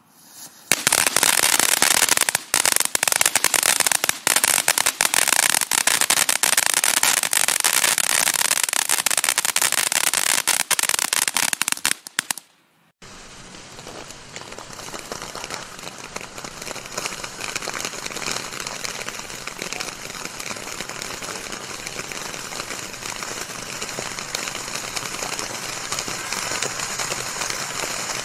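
A ground firework crackles very loudly and densely for about twelve seconds, then cuts off suddenly. After a short gap, an Aladdin's Cave firework fountain hisses and sprays with fine crackling, slowly growing louder.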